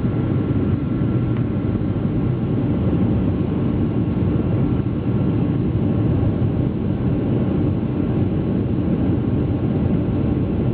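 Boeing 737-500's CFM56-3 turbofan engines running at takeoff power, heard as a steady low rumble. A faint high whine fades out in the first couple of seconds.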